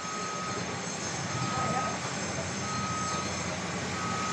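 A construction machine's motion alarm beeping, one steady tone about every 1.3 seconds, four beeps, over the steady running of its engine.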